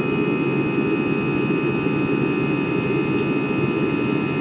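Jet engine and airflow noise inside the cabin of an Airbus A320 climbing out after takeoff: a steady low rush with thin, steady whining tones above it.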